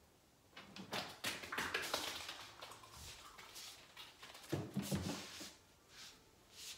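Dog's claws tapping and scrabbling as it gets down off a plastic training platform and moves over foam floor mats, then a cluster of heavier knocks as it climbs back onto the platform about four and a half seconds in, with a few lighter taps after.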